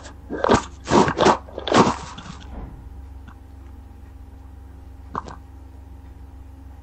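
Four short, loud crunching noises close to the microphone in the first two and a half seconds, then a steady low hum with a single click about five seconds in.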